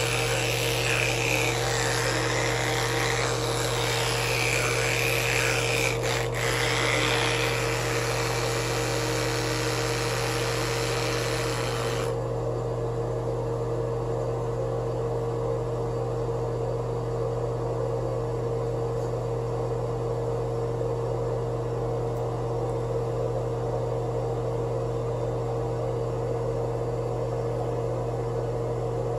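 Electric toothbrush running with a steady buzzing hum. For about the first twelve seconds a higher hiss rides on top, then cuts off suddenly while the hum goes on.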